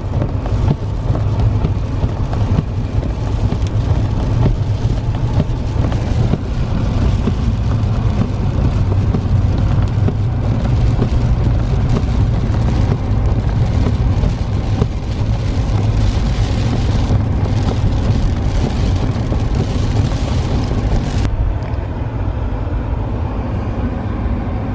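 Car driving, a steady low rumble of engine and tyres with a hiss above it; the hiss drops away suddenly about three seconds before the end.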